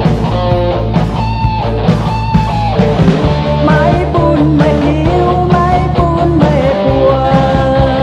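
Rock music with guitar, loud and steady, with a melody line that bends in pitch.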